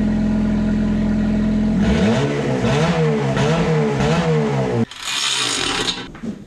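2010 Honda Civic's four-cylinder engine idling through its exhaust, then blipped about four times, each rev rising and falling in pitch. It cuts off suddenly and is followed by a short stretch of noise.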